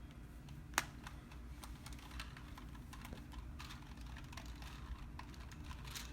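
Small 2x2 plastic puzzle cube being turned quickly by hand: a run of irregular light plastic clicks, with one sharper click about a second in.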